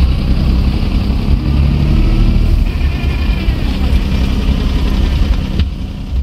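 Small 1988 Subaru Justy three-cylinder engine running at low speed, heard from inside the cabin as a steady low rumble.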